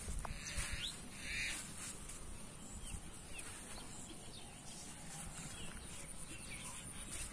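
Plastic bait bags crinkling and rustling as they are handled, loudest in two short bursts about half a second and a second and a half in. Short, sharp bird chirps come now and then in the background.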